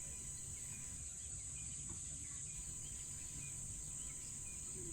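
African bush nature ambience: a steady high-pitched insect chorus, with faint scattered bird chirps.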